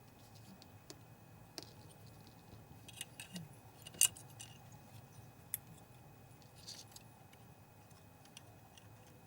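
Scattered small clicks and taps of small parts and tools being handled during projector disassembly, with one sharper click about four seconds in.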